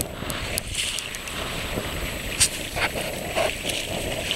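Wind on the microphone and choppy water slapping against an inflatable boat's hull, with one brief sharp sound about two and a half seconds in.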